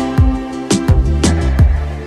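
Background music with a steady beat: regular drum hits under held instrumental notes.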